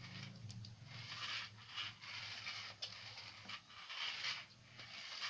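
Irregular scraping and rustling handling noises with a few sharp clicks, over a steady low hum.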